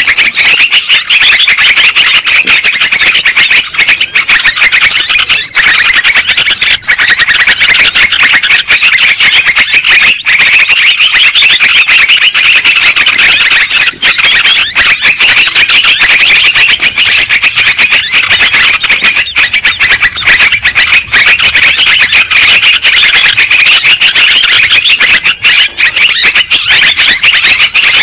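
Lure-call recording of yellow-vented bulbuls (trucuk): a loud, dense, unbroken stream of overlapping chattering calls, played to attract and trap wild bulbuls.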